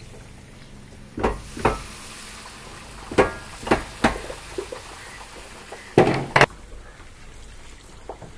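Sev dough frying in hot oil in a large iron kadhai, with a steady sizzle as strands are pressed through a perforated sieve frame into the oil. Over it come sharp metal knocks and clanks of the sieve frame and ladle against the pan: two about a second in, three around three to four seconds in, and the loudest pair about six seconds in.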